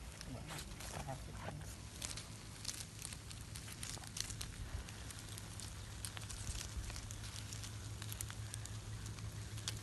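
Crabs roasting on a wire grill over a wood fire: irregular crackling and popping, with shells clicking and knocking as tongs turn them.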